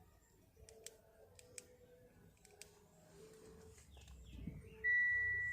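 A few faint clicks, then near the end a single steady electronic beep lasting about a second, the loudest sound here.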